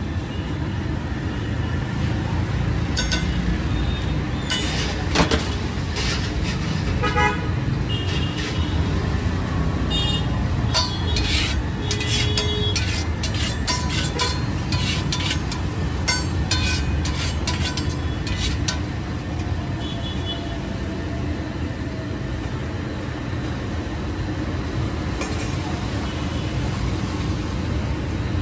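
Street background: steady traffic rumble, with a busy run of sharp clicks and clatter from about 3 to 19 seconds in.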